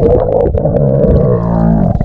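Muffled underwater sound, as picked up by a camera under the water while snorkeling: a loud, droning low tone whose pitch dips and comes back up about halfway through, over a dull rushing noise.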